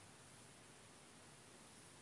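Near silence: a faint steady hiss with no distinct events.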